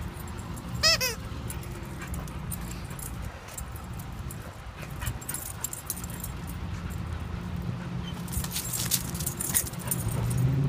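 Puppy giving one short high whine that falls in pitch about a second in. Near the end there are light jingling clicks of collar tags as it moves, over a steady low traffic hum.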